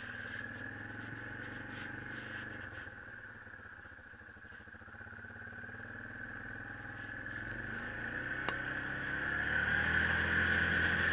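Yamaha Kodiak ATV's single-cylinder four-stroke engine running at low speed while turning, then getting louder from about six seconds in as it picks up speed, holding a steady, louder pitch over the last couple of seconds.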